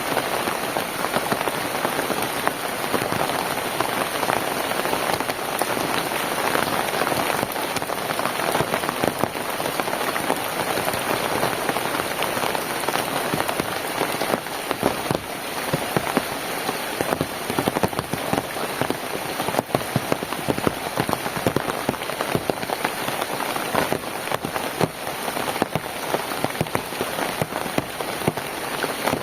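Steady, heavy rain, with many close raindrops pattering on a surface as a dense run of small taps over the even hiss of the downpour.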